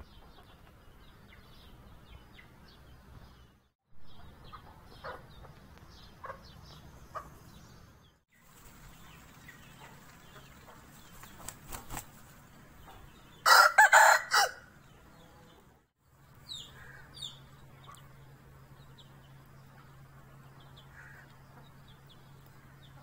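Aseel rooster crowing once, a loud crow of about a second near the middle, just after a few quick wing flaps. Soft short clucks from the chickens come before and after it.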